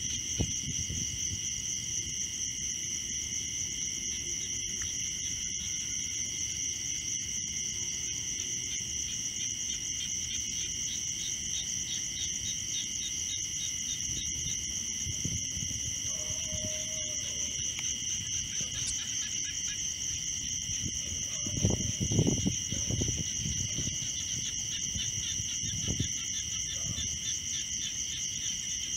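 A steady chorus of chirping insects, typical of crickets, with a few low thumps about 22 seconds in.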